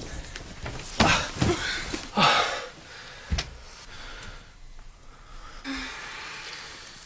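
A person breathing hard in several loud, noisy gasps, with one sharp click a little past three seconds in, then softer breaths.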